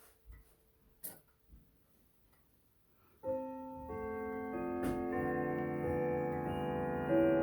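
Chimes of a 1981 Howard Miller triple chime grandfather clock starting up about three seconds in, playing a melody whose notes ring on and overlap into a sustained wash of tones. Before the chime, only a few faint clicks.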